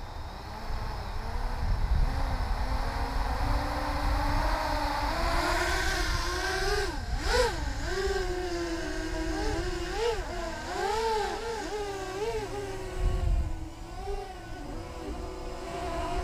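Six-inch FPV racing quadcopter (ImpulseRC Alien, 4S, 6040 bullnose props): the whine of its brushless motors and props climbs in pitch as it lifts off, then swoops up and down in quick surges as the throttle changes in flight.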